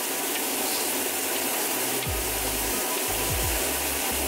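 Steady sizzling hiss of food frying in a pan, with background music whose low bass line comes in about halfway through.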